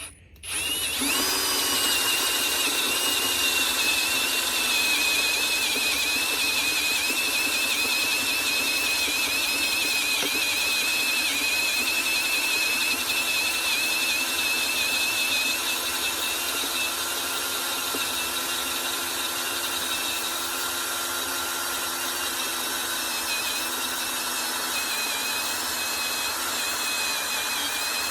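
Cordless power drill in low gear boring a hole through metal, running steadily with a constant high-pitched whine. It starts about a second in and eases slightly about halfway through.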